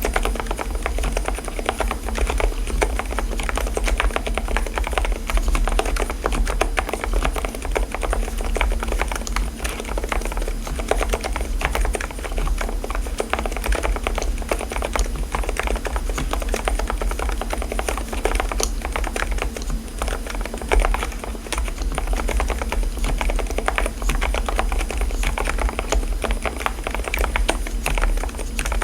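Fast, continuous typing on a mechanical keyboard fitted with low-noise silenced switches: a dense run of keystrokes with no real pauses, over a steady low hum.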